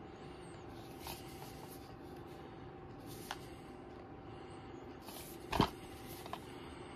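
A plastic DVD case being handled and turned over: a few light clicks and taps, with one louder knock about five and a half seconds in, over a steady faint hum.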